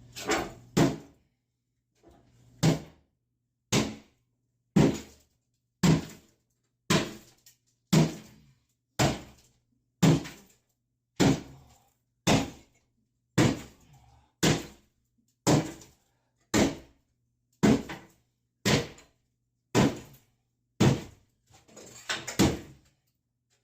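Heavy hammer blows breaking up a cast iron bathtub: a steady run of about twenty hard metallic strikes, roughly one a second, each ringing briefly.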